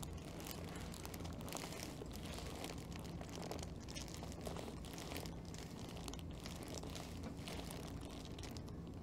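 Faint rustling and crinkling of a person shifting on a chiropractic treatment table, over a steady low hum.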